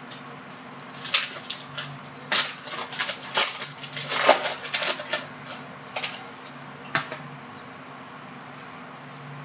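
Crackling and clicking from trading-card packs and cards being handled, with a dense cluster of sharp crackles from about one to seven seconds in over a faint steady hum.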